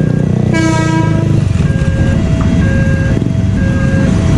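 A KRL electric commuter train's horn sounds one blast about a second long, shortly after the start. Throughout, a level-crossing warning alarm switches between two pitches about twice a second, over a steady low rumble of the passing train and idling motorcycles.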